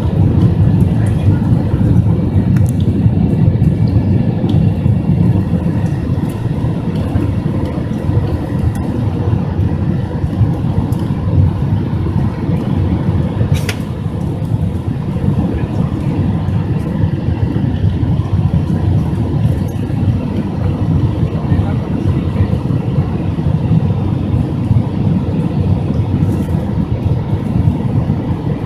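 Airbus A321 cabin noise heard inside the cabin: a steady, loud low rumble of jet engines and airflow with a faint steady whine. A single brief click sounds about halfway through.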